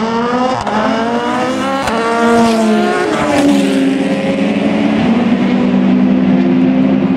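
A group of endurance race cars accelerating past one after another, their engine notes rising in pitch in steps. After about three seconds this settles into a steadier engine drone as they pull away.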